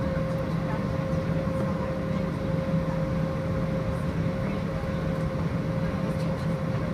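Steady drone of airliner jet engines at taxi power as an Airbus A380 taxis close by, with a constant hum running through it.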